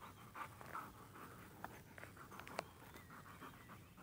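A dog panting faintly in quick repeated breaths, with a few short sharp clicks.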